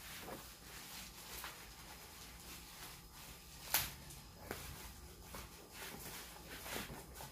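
Packaging being handled and opened: faint rustling with a few light clicks and taps, the sharpest about four seconds in.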